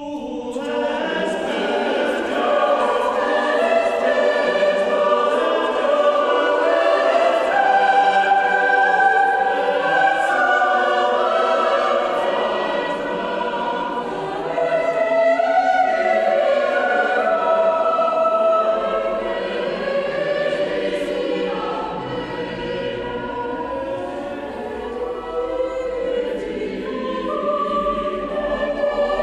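Mixed choir singing sacred choral music, entering together right at the start after a silence and carrying on in several voice parts.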